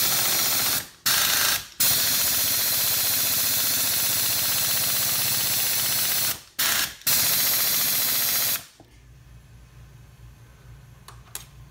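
Air-powered wrench running on a rusty starter motor's through-bolts to back them out: a loud rush of air with a fast mechanical rattle. It runs in bursts with short breaks about a second and two seconds in and again around six to seven seconds, then stops about eight and a half seconds in.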